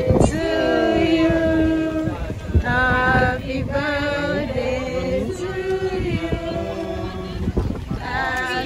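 Several people singing a song together, a birthday song for the cake being cut, with long held notes from overlapping voices. A brief knock sounds just after the start.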